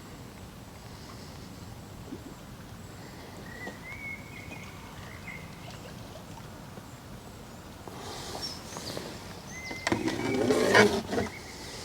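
Quiet outdoor ambience with a few faint bird chirps; about eight seconds in, louder rustling and clattering handling noise builds for a few seconds, then stops near the end.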